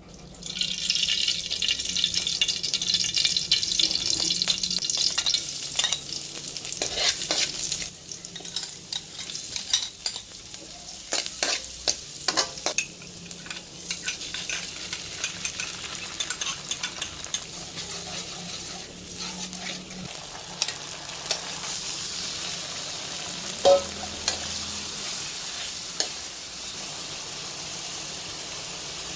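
Food frying in hot oil in a pan, sizzling loudly for the first several seconds. A utensil then scrapes and taps against the pan as the food is stirred while the sizzle carries on more softly. Near the end of the stirring comes one short ringing clank of metal.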